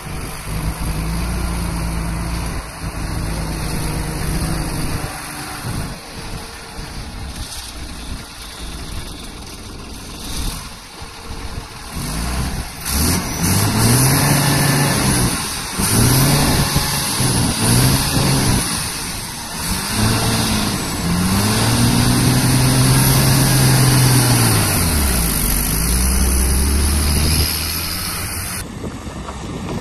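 Tata 10-wheeler truck's diesel engine working hard under load, hauling an excavator up a steep dirt climb. It runs steadily at first, then is revved up and down several times through the second half, with a high whine rising and falling with the revs.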